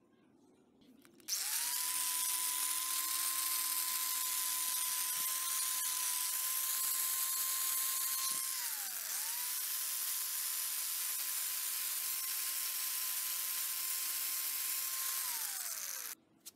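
Electric angle grinder with a non-woven abrasive polishing disc, switched on and running with a steady high whine. About halfway through it winds down briefly, then is switched on again. Near the end it winds down once more and cuts off suddenly.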